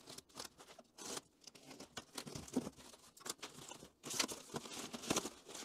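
A knife cutting through packing tape and plastic wrap on a cardboard parcel, with crinkling and tearing of the wrapping. The scraping gets louder and busier about four seconds in.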